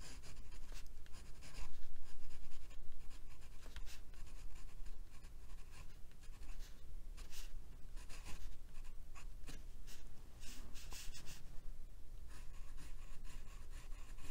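Twisted glass dip-pen nib scratching across textured watercolor paper in a run of short, irregular strokes while writing. The scratchiness comes from the very toothy paper and is not a nib that catches.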